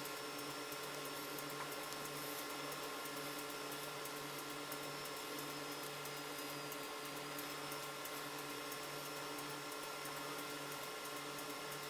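A small electric motor running steadily, a constant hum with a faint high whine.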